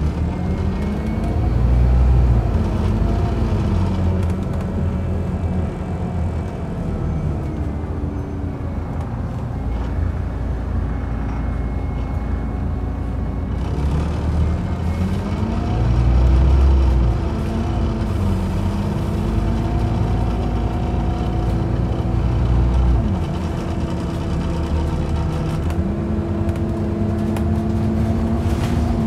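Scania OmniCity single-deck bus heard from inside the saloon while under way: the engine note rises and falls back several times as the bus pulls away and eases off. A steady whine joins about halfway through.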